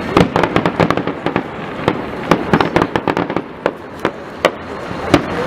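Fireworks salute going off: a rapid volley of sharp bangs and crackling reports that thins out after about three seconds, with a couple of louder single bangs near the end.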